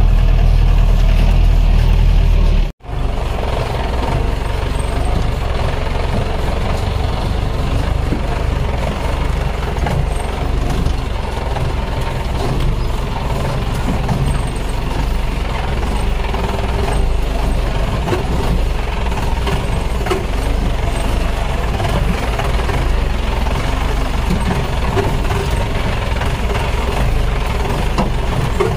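Off-road jeep driving over a rough, rocky dirt track: the engine runs with the body knocking and rattling irregularly as it jolts over the ground. A heavy low rumble at the start cuts off abruptly about three seconds in, and the rattling driving sound follows.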